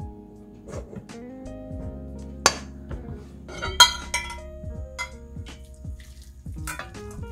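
A metal spoon clinks against stainless steel cookware as rice is scooped into a bowl and a small saucepan is picked up, with a few sharp clinks, the loudest about two and a half seconds in and around four seconds in. Near the end, liquid is poured from the saucepan onto the rice. Soft background music with long held notes plays underneath.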